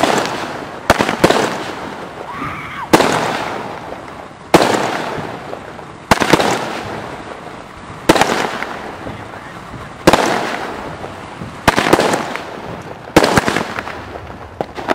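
Consumer aerial fireworks going off in quick succession: about ten sharp bangs, one every one and a half to two seconds, each trailing off for a second or so. The steady pace is typical of a multi-shot cake firing its tubes in turn.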